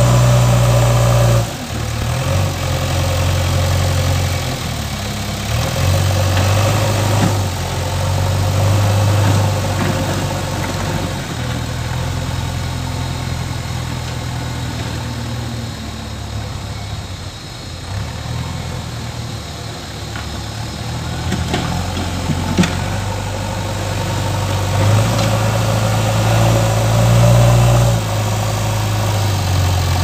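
JCB backhoe loader's diesel engine running under load as its front bucket pushes soil, the engine note rising and falling. Loudest at the start and again near the end, quieter in the middle while the machine is farther off, with one sharp knock about two-thirds of the way through.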